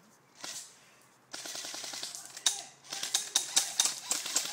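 Airsoft rifles firing in a woodland skirmish: a rapid burst of shots begins about a second in, followed by a quick, irregular string of sharp cracks from several guns.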